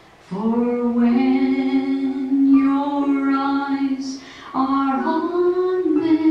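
A woman singing a slow worship song solo into a microphone, holding long steady notes. She breaks off briefly about four seconds in, then sings on.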